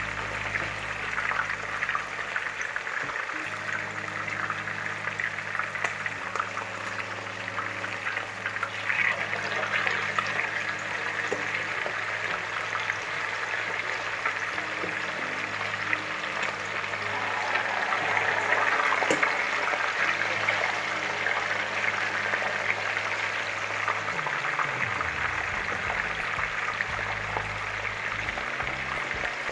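Chicken pieces frying in hot oil in a pot: a steady sizzle that grows louder for a few seconds around the middle.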